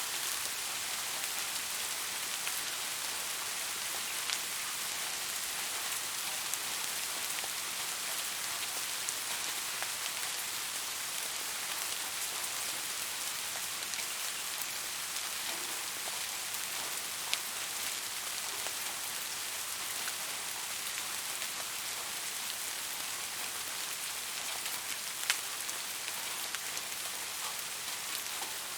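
Steady soft rain falling, an even hiss with scattered single drops ticking more sharply, one near the middle and a louder one near the end.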